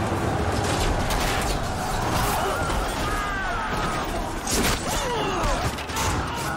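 Film battle sound: the dense din of a charging army with men shouting, then shields and weapons clashing in a string of sharp impacts from about four and a half seconds in.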